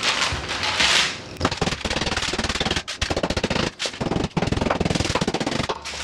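Parchment paper rustling, then a rolling pin rolled back and forth over a stick of butter wrapped in parchment paper on a wooden counter. It makes a fast clattering rattle in runs, with short breaks where the strokes change direction.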